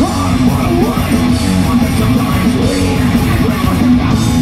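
Live heavy metal band playing loudly: distorted electric guitars, bass and drums.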